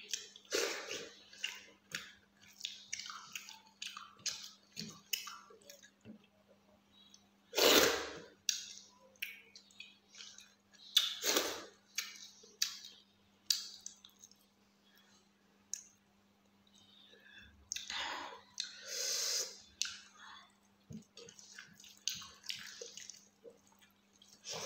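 Close-miked wet eating sounds of rice and fish curry eaten by hand: a string of short smacks and clicks of chewing and lip-smacking, with a few louder, longer mouth sounds.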